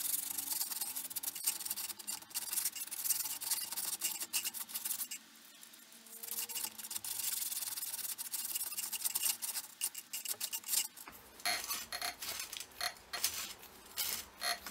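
Sandpaper taped around an old car-jack lever arm rubbing and rasping inside a bicycle seat tube, worked back and forth to sand out rust, with a short break about five seconds in. Near the end the strokes grow rougher, with metallic clinks, where the tube is stiff and maybe rusty.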